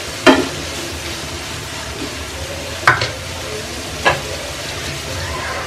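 Diced radish and onion sizzling steadily in oil in a nonstick frying pan while being stirred, with a spatula knocking against the pan a few times: once just after the start, twice close together about three seconds in, and again a second later.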